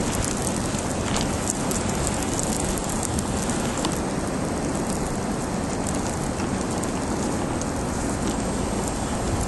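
Blizzard wind buffeting the microphone: a steady hiss with a low rumble underneath and a few faint scattered ticks.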